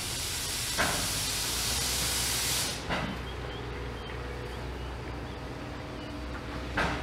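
Steam hissing loudly from GWR-built Vale of Rheidol narrow-gauge tank locomotive No. 8, cutting off abruptly about two and a half seconds in. Three short knocks come about a second in, about three seconds in and near the end, over a steady low rumble.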